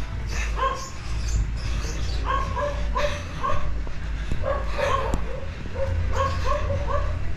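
A dog barking in about four quick runs of two to four short barks each.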